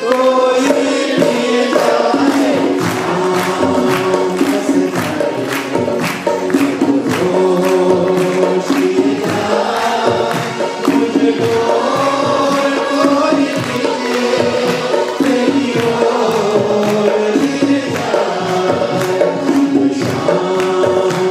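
Live band music: tabla and conga hand drums keep a steady beat under a sustained melody, with harmonium and keyboard in the ensemble.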